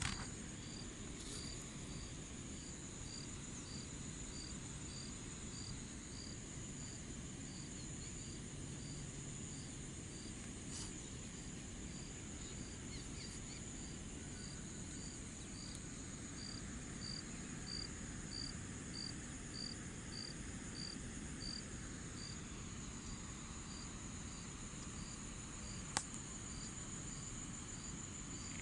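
Insects calling in a chorus: a continuous high trill, with another insect chirping in a steady rhythm about one and a half times a second. A single sharp click sounds near the end.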